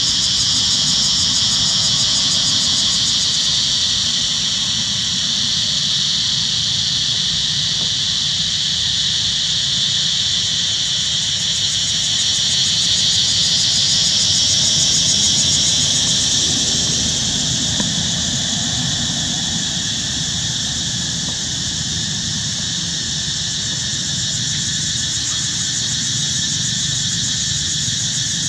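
Steady high-pitched insect drone, a cicada-like chorus that swells and eases slowly without a break, over a low rumble.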